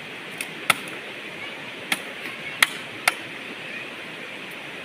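Five sharp knocks at uneven intervals over a steady rushing background noise.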